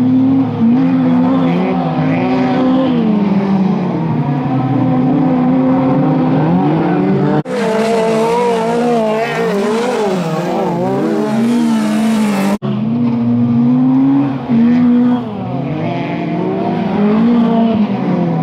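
Several autocross touring cars racing on a dirt track, their engines revving up and down and overlapping as they accelerate and shift. The sound cuts abruptly twice.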